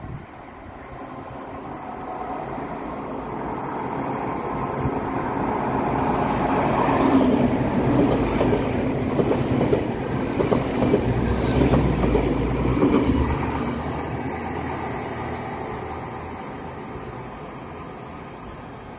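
Class 802 bi-mode express train passing along the platform. It grows louder as it comes in, is loudest in the middle with a rapid clatter of wheels on the track, then fades away.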